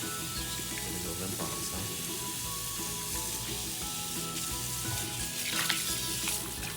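Steady hiss of water as a baby goat is washed in a tub, with a brief louder splash about five and a half seconds in and soft background music underneath.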